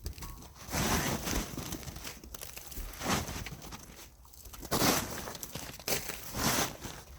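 Irregular bursts of crinkling and crunching, about five in all, from a snow-covered tent being handled.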